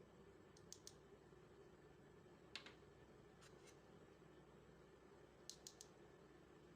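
Near silence with a few faint, sharp clicks in small clusters, twice, once, twice and three times.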